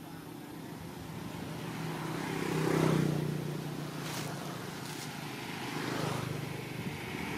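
A motor vehicle engine passing by with a steady hum. It swells to its loudest about three seconds in, fades, then rises again a little near the end.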